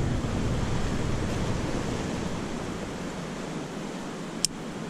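Steady wash of ocean surf, easing off in the second half. One sharp click near the end, a carabiner being clipped.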